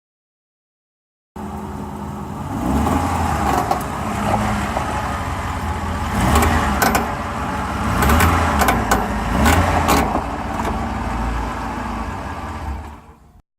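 2008 Ford F-150 FX4 pickup running, with engine sound swelling and easing and a series of sharp creaks and clicks through the middle. The owner links the creaking to a recent transmission change.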